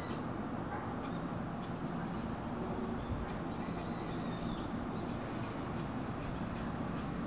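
Outdoor ambience: a steady low rumble of distant traffic, with faint, short high bird calls now and then.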